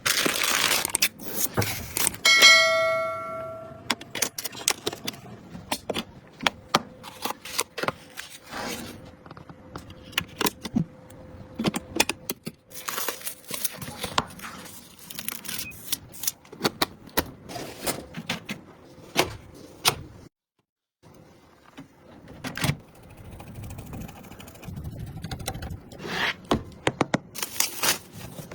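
Hands handling and fitting computer parts: a run of clicks, taps, knocks and scrapes of plastic and metal, with a short metallic ring a little over two seconds in.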